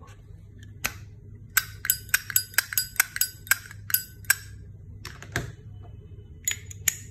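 Silver-plated Zippo lighters being handled, their lids snapped open and shut: a quick run of about a dozen sharp, ringing metallic clicks, a couple more, then another few near the end.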